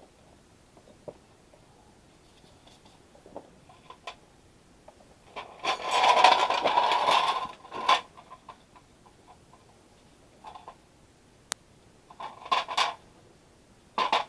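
Hand tools working on metal, heard as intermittent clicking and scraping, with one long, loud burst of about two seconds near the middle and a few shorter bursts and a sharp click later.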